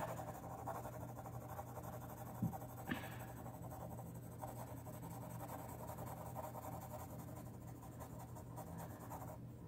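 Pencil lead lightly shading on paper: faint, soft scratching strokes.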